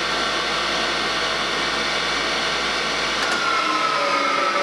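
Vintage Dominion Elliot 10 three-in-one woodworking machine running with a steady whine. A click comes about three seconds in, the low hum stops, and the whine starts to fall in pitch as the machine is switched off and coasts down.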